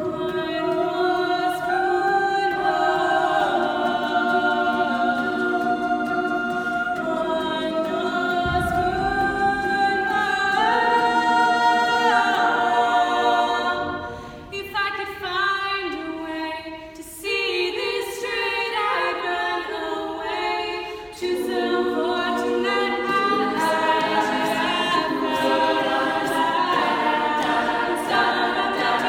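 A cappella vocal group singing in sustained close harmony, voices only. Midway the sound thins and quietens and the low voices drop out for a few seconds, then the full group comes back in at once.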